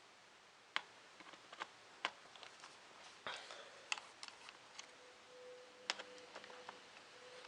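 Scattered sharp small clicks and ticks of a screwdriver working the screws out of a ZX Spectrum+ plastic case, with screws and small parts knocking on the plastic, a click every half second to a second.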